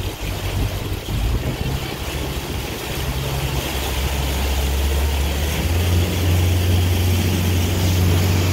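Motorboat engine running under load while towing, with wind and water rush over it; about halfway through, the engine note steps up and grows louder as the boat speeds up.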